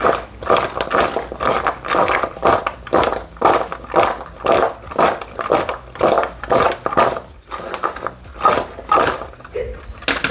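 Frozen mixed vegetables tossed with oil in a stainless steel bowl, rattling and sliding against the metal in an even rhythm of about two to three shakes a second.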